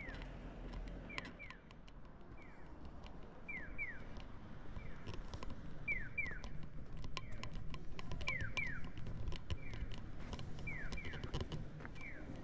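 Pairs of short falling electronic chirps, 'piyo-piyo', repeating at an even pace about every 1.2 s, alternately louder and fainter: the chick-call tone of a Japanese pedestrian crossing signal, which sounds while the walk light is green. A low traffic rumble and scattered sharp clicks lie underneath.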